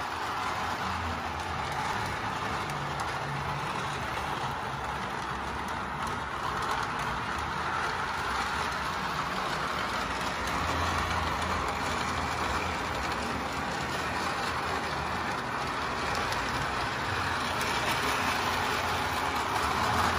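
Electric toy train running steadily around its track: the hum of its motor and the rolling of its wheels on the rails, a little louder near the end.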